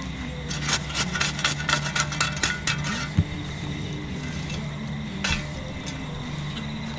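Metal shovel scraping up hot coals and tipping them onto a camp oven's lid. A quick run of scrapes and clinks fills the first three seconds, followed by two single knocks of the shovel.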